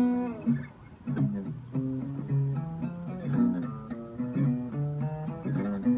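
Little Martin travel-size acoustic guitar, freshly restrung, being played: chords strummed and picked, with the notes ringing on between strums.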